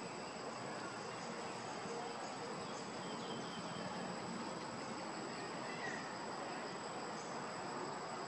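Steady insect drone: a constant high-pitched buzz over an even background hiss.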